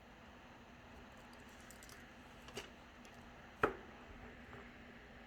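Light clicks and taps of small tools and parts handled while working on a smartphone. Two sharper ones come about two and a half and three and a half seconds in.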